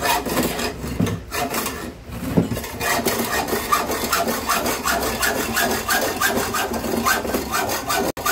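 Hacksaw cutting through chrome-plated metal with back-and-forth strokes. The strokes are uneven at first and settle into a steady rhythm of about three a second a few seconds in.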